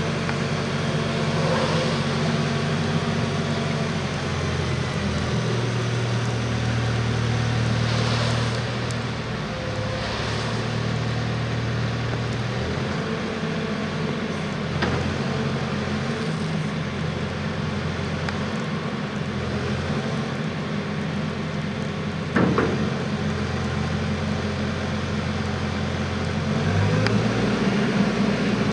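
Caterpillar 355 telehandler's diesel engine running steadily while its hydraulics lower and retract the telescopic boom. The engine note shifts up and down a few times, and there is one sharp click about three-quarters of the way through.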